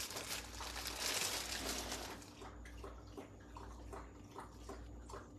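Plastic bag crinkling as low-carb tortilla shells are pulled out of it, fading after about two seconds into light handling ticks as the tortillas are pulled apart, over a steady low hum.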